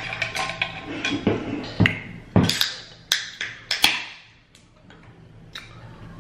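Tortilla chips being crunched and chewed while eating Flamin' Hot Doritos loaded nachos: a run of sharp crunches, loudest in the middle, then quieter chewing.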